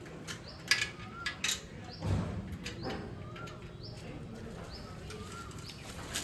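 A bird calling, a short rising-then-falling call repeated about once a second, with a few sharp clicks in the first two seconds.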